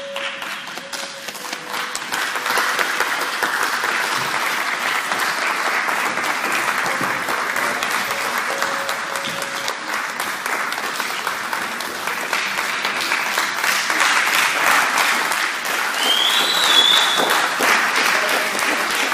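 Audience applauding at the end of a school play, swelling over the first couple of seconds and then holding steady. A short high rising call cuts through it about three-quarters of the way through.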